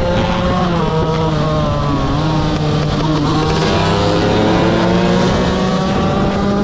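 KTM 125 motorcycle engine running hard at high revs, its pitch dipping about two to three seconds in and then climbing again.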